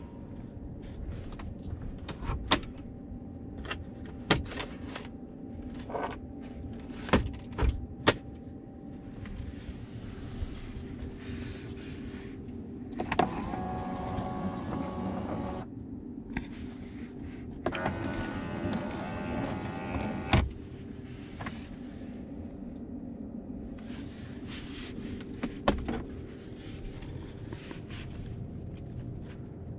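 A 2022 Ford F-150 Lightning electric pickup driving, heard from inside the cabin: a steady low hum of road and drive noise broken by scattered clicks and knocks. Near the middle come two stretches, each a few seconds long, of a higher electric whine.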